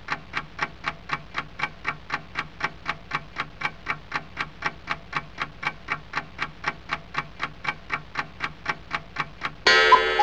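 A clock ticking steadily, about four ticks a second, over a faint low hum. A loud burst of music cuts in near the end.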